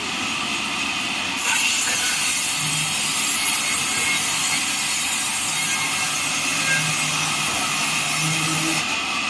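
Band sawmill blade cutting neem wood: a steady, loud saw hiss that rises in level about a second and a half in and drops back near the end.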